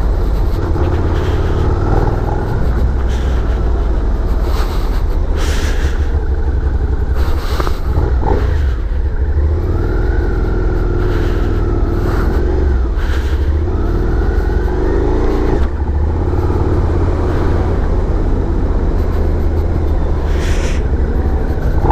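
Suzuki SV650's 645 cc V-twin engine running at road speed under heavy wind rumble on the rider's microphone, its pitch rising and falling with the throttle.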